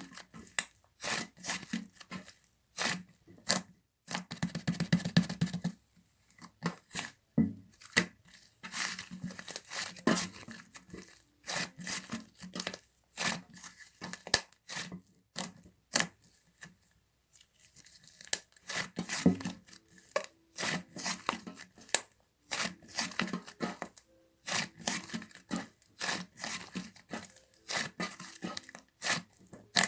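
Slime being squished and poked, making rapid sticky clicks, pops and crackles in bursts, with a short pause about two-thirds of the way through.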